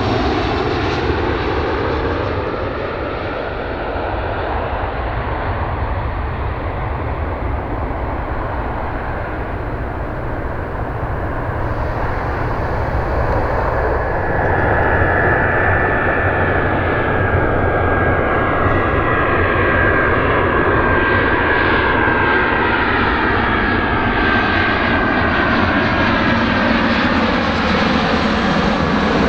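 Jet airliner landing, its engines running with a loud, steady rush, the sound slowly shifting as it moves past. A steady high whine comes in about halfway through.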